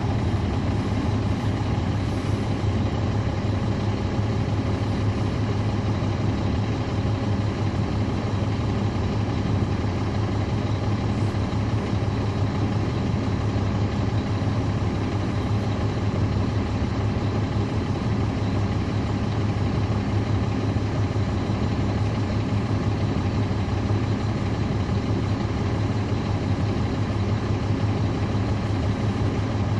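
Caterpillar C13 ACERT diesel engine of a 2009 NABI 40-SFW transit bus running steadily, heard from on board the bus, with an even drone that neither rises nor falls in pitch.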